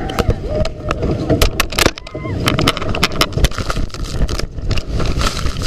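Water-ride boat cresting the lift and dropping down the chute: rattling and clattering knocks over a rumble, with brief shouts from the riders. Near the end a rising hiss of water spray as the boat hits the splashdown pool.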